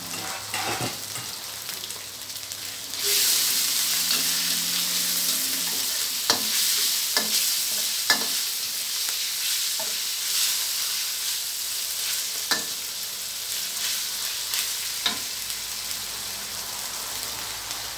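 Sliced pork sizzling in hot oil and curry paste in a steel wok, the sizzle getting louder about three seconds in. It is being stir-fried, with the metal spatula clinking and scraping against the wok a few times.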